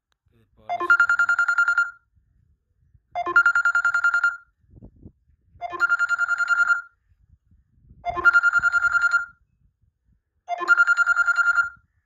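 An electronic ringing tone repeating five times, about every two and a half seconds: each ring is a short rising chirp into a fast, high trill lasting about a second.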